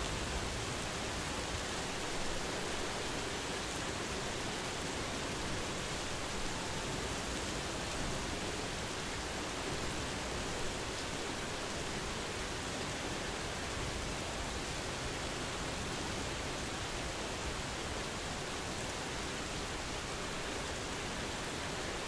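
Medium-intensity rain falling steadily, an even hiss.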